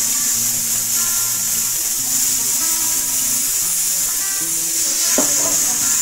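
Steady, loud hiss of gas rushing through a refrigeration manifold gauge set and its hoses with a valve open, as when refrigerant is charged or purged. Quiet background music plays underneath.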